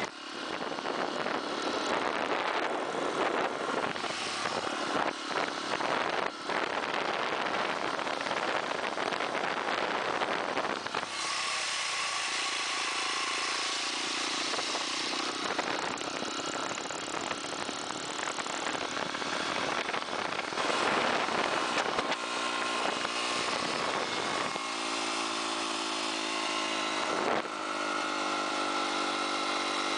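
Honda XR dirt bike's single-cylinder four-stroke engine running as the bike is ridden through shallow surf along the shoreline, with a dense rushing noise over it. The engine's steady note comes through more clearly in the last several seconds.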